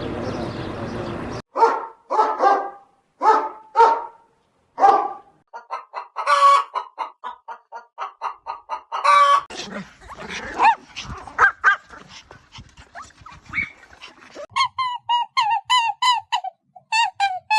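Animal calls from several different animals played one after another. There is a steady noise for about the first second and a half, then about five separate calls roughly a second apart, then a fast run of short calls. Quick repeated calls begin near the end.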